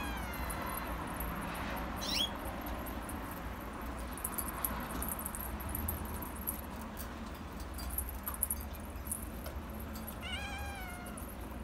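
Himalayan kitten meowing: a high meow falling in pitch at the start, a short squeak about two seconds in, and another meow near the end.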